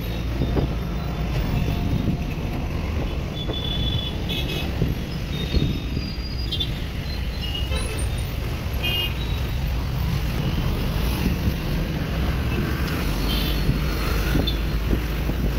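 Busy city traffic heard from a moving open auto-rickshaw: a steady engine and road rumble, with short vehicle horn toots several times.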